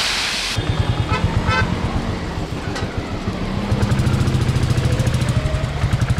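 Motorcycle engine running with an even, pulsing throb while riding, with a couple of short vehicle-horn toots a little over a second in. A steady rain hiss cuts off about half a second in.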